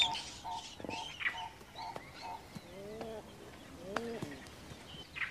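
Birds calling: a short note repeated about twice a second, then two lower, arching calls about a second apart.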